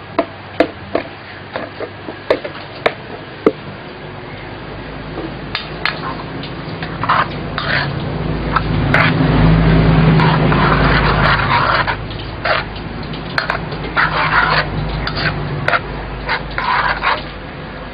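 Cooked mung beans poured from a plastic container into a frying pan of pork, followed by cooking noise in the pan. A run of sharp clicks comes first, from a utensil against the container and pan. Then a louder stretch of noise and scraping builds to a peak in the middle and falls away, with short scrapes near the end.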